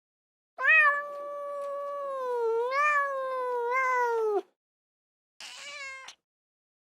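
Domestic cat meowing: one long, drawn-out meow of about four seconds with its pitch wavering a little, then a short, quieter meow about a second later.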